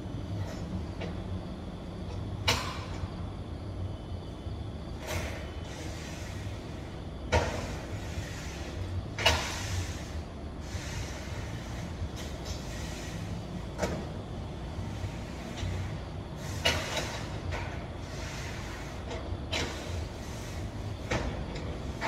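A lorry engine idling with a steady low rumble. Plastic crates are loaded and stacked by hand over it, giving about nine sharp knocks and clatters a few seconds apart, the loudest around seven and nine seconds in.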